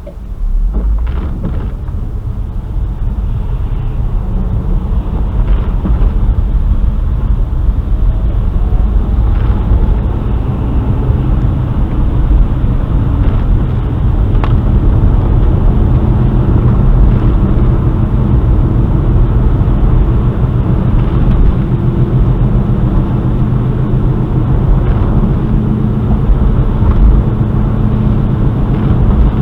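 Car driving: engine and road noise, a steady low rumble that grows louder over the first few seconds as it picks up speed, then holds.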